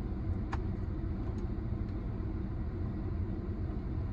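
Steady low rumble of an idling car, heard inside the cabin, with a faint click about half a second in.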